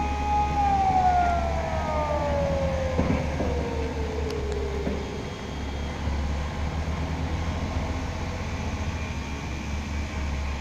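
Strong wind rumbling and buffeting the microphone throughout. Over it, a steady high wailing tone starts to slide down in pitch about half a second in and fades out after about five seconds, like a siren winding down.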